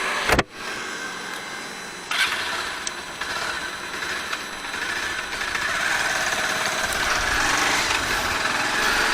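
Bajaj Pulsar 220 single-cylinder motorcycle engine running as the ride gets under way, its engine and road noise building steadily. There is a sharp click about a third of a second in, and the level steps up at about two seconds.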